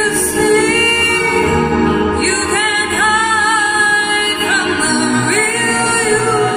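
A song played through JVC MX-G950V mini-system speakers: long, drawn-out sung vocal phrases that slide in pitch, three of them, over a sustained music backing.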